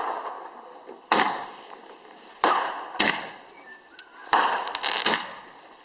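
Firework bangs going off one after another, five loud reports at uneven intervals, each followed by a fading echo.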